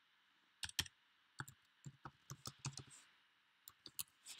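Faint, uneven key clicks of a computer keyboard as a password is typed, starting about half a second in.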